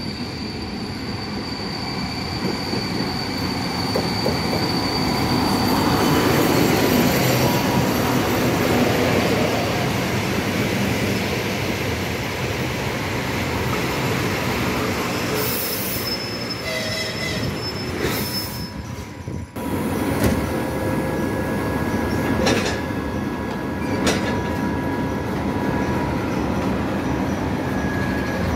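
A passenger train hauled by a TEP70BS diesel locomotive rolling past at low speed. The locomotive's diesel engine and the wheels on the rails grow loudest a few seconds in, and thin wheel or brake squeals are heard. Later the train moves off, with two distinct clicks of wheels crossing rail joints.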